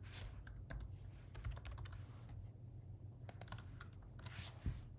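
Typing on a computer keyboard in several short bursts of keystrokes, over a faint steady low hum.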